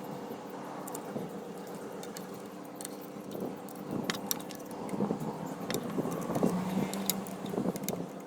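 Small metal fittings and tools clinking and clattering as the pieces of a roller-furling system are handled, in scattered sharp clicks that come more often in the second half, over a steady low hum.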